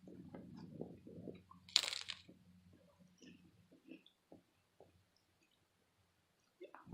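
Hard-shell crispy taco being bitten and chewed close up: crackling crunches, with one loud crunch about two seconds in, then softer chewing crackles that fade.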